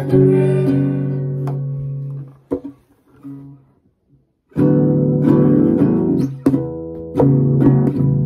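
Nylon-string classical guitar being played, its notes ringing and fading out about two seconds in. After a short pause with a small knock, playing starts again about four and a half seconds in.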